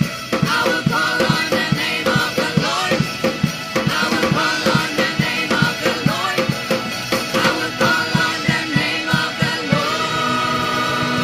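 Live worship music: a band with a steady drum beat and voices singing, moving into long held notes about ten seconds in.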